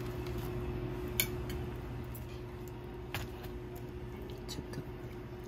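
Metal tongs clicking against plastic-wrapped meat trays and a plate: one sharp click about a second in, another about three seconds in, and a few fainter taps near the end, over a steady low hum.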